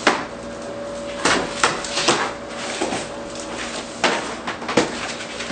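Cardboard shipping box being opened by hand: packing tape ripped off and the cardboard handled, in several sharp rips and knocks.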